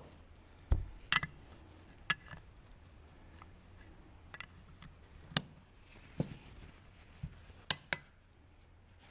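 Metal parts of an aircraft dry vacuum pump clinking and knocking against each other and the workbench as they are handled and fitted together: scattered clicks and clinks, with a dull knock about a second in and two sharp clinks close together near the end.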